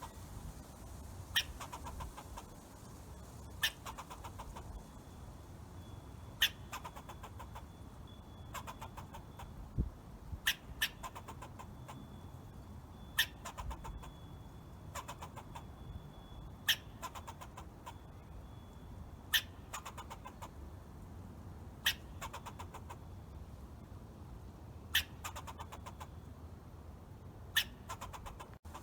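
Squirrel calling: short, sharp chirps every two to three seconds, each trailing off in a brief rapid rattle, over a low steady background hiss.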